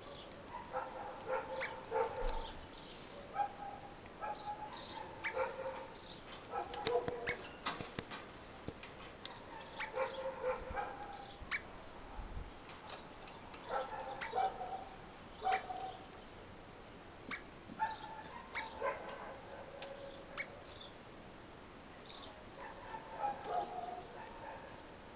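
Eastern rosella giving short chattering, piping calls in little bursts every second or two, with scattered sharp clicks between them.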